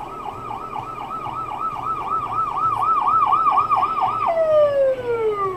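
Ambulance siren wailing in a fast warble, about four rises and falls a second, getting louder as it comes near; about four seconds in it switches to one long tone sliding down in pitch.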